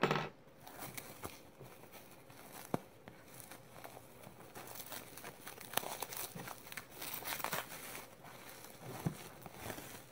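Bubble wrap crinkling as it is handled and unwrapped by hand, with a few sharp clicks among the irregular crackle.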